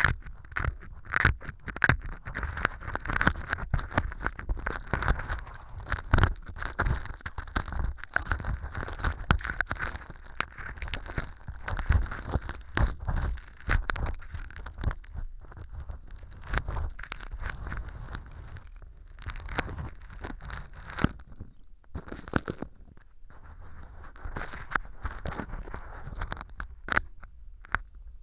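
Stainless steel ear pick scraping through fake earwax made of styrofoam powder and sawdust inside an ear model, close to the microphone: a dense run of small crackles, crunches and scrapes, with a brief lull a little past two-thirds through and sparser scraping near the end.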